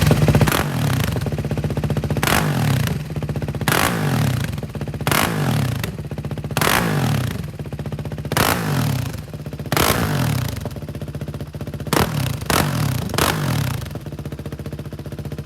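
Husqvarna SMR 511 supermoto's single-cylinder four-stroke engine blipped about ten times through a Higashi exhaust with the dB killer removed. Each rev rises sharply and falls back to a lumpy idle, with a quick cluster of revs near the end before it settles to idle.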